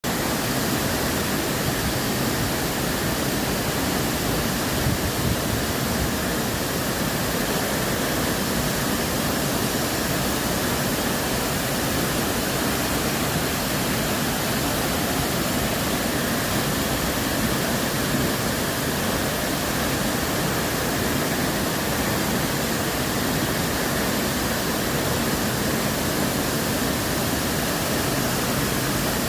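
Waterfall: water falling onto rock in a steady, unbroken rush.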